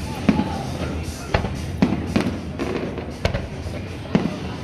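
Fireworks display: about six sharp shell bursts, spaced between half a second and a second apart, over a steady low rumble.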